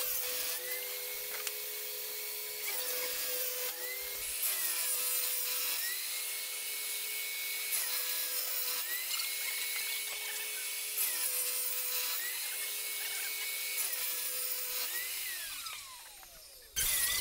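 Homemade table saw cutting a large wooden sheet, the motor's pitch sagging and recovering over and over as the blade takes the load. Near the end it is switched off and winds down with a falling whine.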